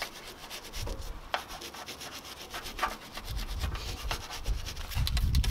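Small stiff-bristled Meguiar's detailing brush scrubbing caked grease off the metal underside of a car bonnet around the hinge, in quick repeated strokes. A low rumble builds beneath the scrubbing and is loudest near the end.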